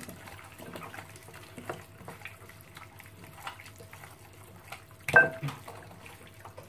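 Hands mixing raw chicken pieces in an oily garlic-and-herb marinade in a glass dish: soft wet squelching with many small clicks, and one louder knock about five seconds in.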